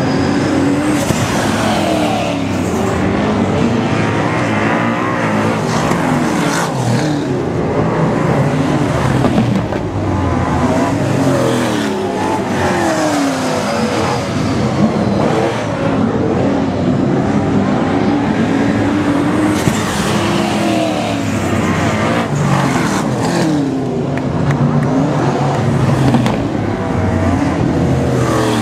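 Several super saloon speedway cars racing on a dirt track, their engines revving continuously, with the engine notes rising and falling again and again as cars pass close by.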